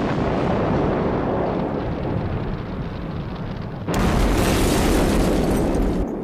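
Explosion and collapse sound effect from a television soundtrack: a continuous heavy rumble, then a second, louder blast about four seconds in that cuts off just before the end.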